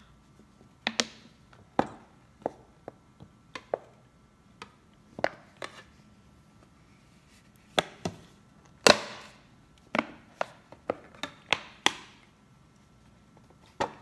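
Plastic bottle crackling as it is squeezed and knocking against a plastic microwave box, used as a suction tool to lift egg yolks away from the whites. Irregular sharp clicks and knocks, the loudest with a brief rattle about nine seconds in.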